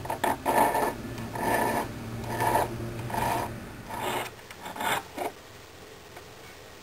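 Hand file rasping across a sand-cast silver figurine, cleaning up the raw casting: a run of short strokes, about one a second, that stops a little after five seconds in.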